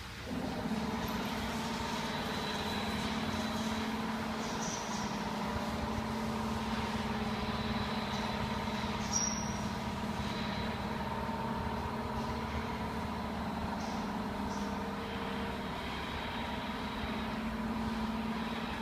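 Workshop machinery running steadily: a constant mechanical hum with steady high-pitched whines over it, from running CNC router machines.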